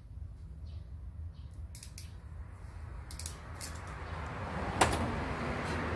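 Sharp clicks and snaps of pliers working on a submersible pump's lead wires, a handful of them, with the loudest snap about five seconds in. Under them a low steady hum, and a rushing background noise that builds from about halfway.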